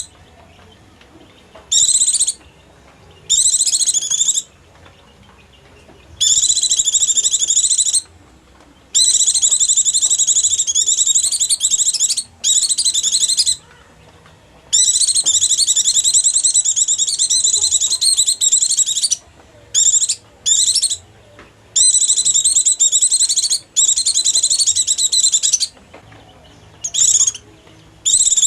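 White-eye (pleci) song, used as a lure call: bursts of rapid, high-pitched twittering trills. Some last only a moment, others several seconds, with short pauses between.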